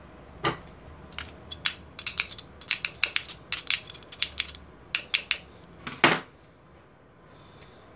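Small screwdriver clicking and scraping against the steel body and jaws of a three-jaw mini lathe chuck: a quick irregular run of metallic ticks with a short ring, ending in a heavier knock at about six seconds.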